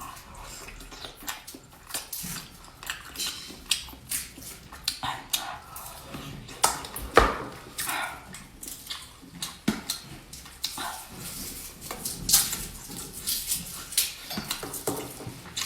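A person eating close to the microphone: irregular mouth smacks and chewing clicks, a few sharper ones standing out.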